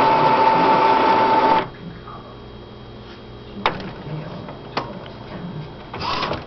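Epson inkjet printer's mechanism running with a steady whine that stops about a second and a half in, followed by two sharp clicks and a short rattle near the end.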